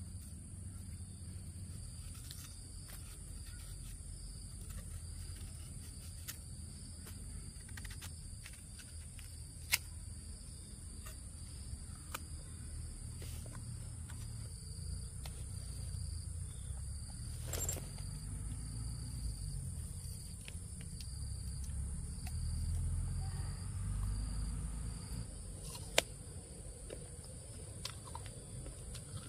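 Steady high-pitched insect chirring, crickets or cicadas, over a low rumble, with a few sharp clicks: one about ten seconds in, one near the middle, and one near the end.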